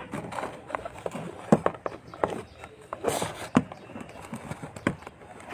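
Handling noise from a phone being moved about: a run of irregular knocks and clicks, unevenly spaced.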